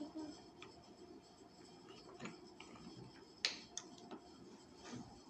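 Small wooden puzzle pieces clicking and tapping against each other and the tabletop as they are fitted together by hand: a few light, scattered clicks, the sharpest about three and a half seconds in.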